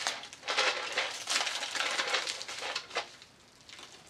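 Plastic packaging rustling and crinkling as an item is handled and unwrapped in a cardboard box, in a run of short noisy bursts that dies down about three seconds in.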